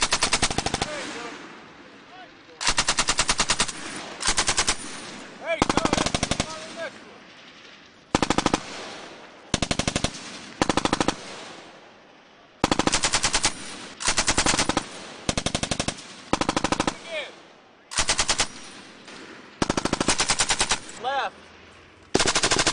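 M240 7.62 mm belt-fed machine gun firing a string of short bursts, about fourteen of them, each under a second long with a second or so between, and an echo trailing each burst.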